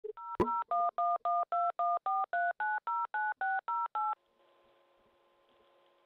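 Touch-tone telephone keypad dialing a number: a sharp click, then about fifteen short two-tone beeps at roughly four a second. The beeps stop about four seconds in, leaving the faint steady hiss and hum of the open phone line.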